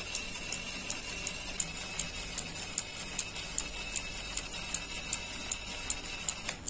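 Small electric turbojet engine model giving off even, clock-like ticking, about five ticks every two seconds, over a faint high steady whine.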